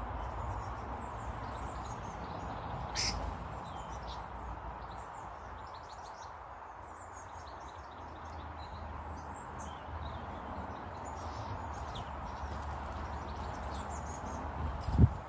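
Small garden birds chirping in short, scattered calls over a steady background hum, with a brief click about three seconds in and a loud low thump near the end.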